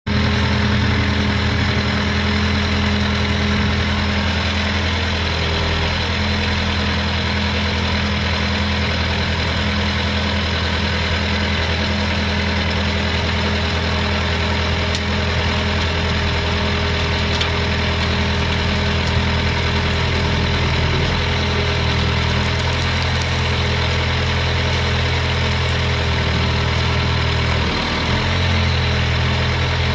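John Deere four-cylinder diesel engine of an Elgin Pelican street sweeper idling steadily, its note wavering briefly near the end.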